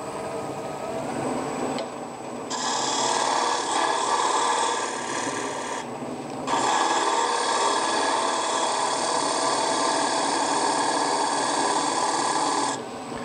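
A gouge cuts spinning big leaf maple on a wood lathe, making a steady shaving sound. There are two long cuts: the first starts about two and a half seconds in and stops near six seconds, and the second runs from about six and a half seconds until shortly before the end.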